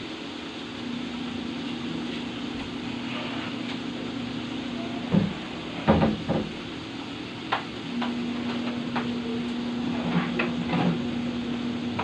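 Butter garlic shrimp simmering in a metal pan, a steady hiss with a low hum under it. Several sharp knocks and clinks of cookware come in from about five seconds in.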